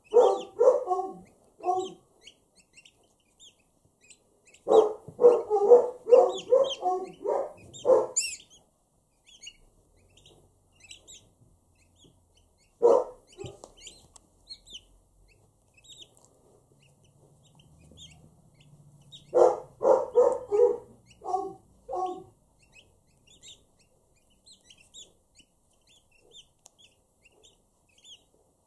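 Turkey poults peeping with short, high chirps throughout, and four bursts of louder, lower calls in quick series, the longest a run of about eight calls around five to eight seconds in.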